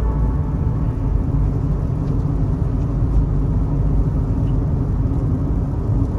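Steady low rumble of a car driving, heard from inside the cabin: road and engine noise with no clear events.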